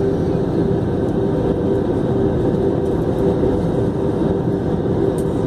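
Steady cabin noise inside an Airbus A320-family airliner: an even engine and airflow rumble with a steady mid-pitched hum running through it.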